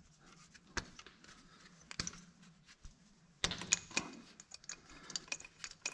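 Spark plug wire boots being pulled off the plugs of an Oliver 880 tractor's gasoline six-cylinder engine by hand. Single clicks about a second and two seconds in, then a busier run of clicks and rustling over the last couple of seconds.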